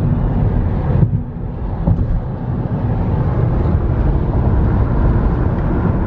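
Car road and engine noise heard from inside the cabin while driving: a steady low rumble that dips briefly about a second in.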